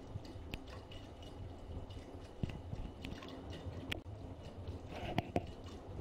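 Miele W5964 washing machine running its maintenance programme with an empty drum: water sloshing and dripping inside the turning drum, over a low rumble, with scattered clicks and splashes that grow louder near the end.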